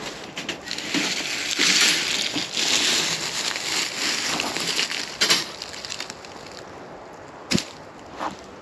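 Crunching and rustling in dry leaf litter as people move about and handle a wire cage trap on the forest floor. It dies down after about six seconds, and there is a single sharp click about seven and a half seconds in.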